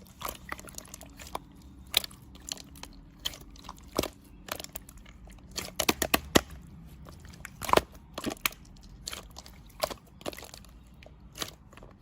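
Irregular sharp clicks and taps, some in quick clusters, over a faint steady low hum.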